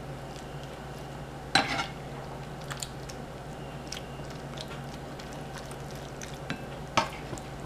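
Black plastic serving spoon scooping creamy sauce from a pan onto fettuccine in a bowl: soft wet scraping and light clicks, with two sharp louder knocks of the spoon, one about a second and a half in and one near the end.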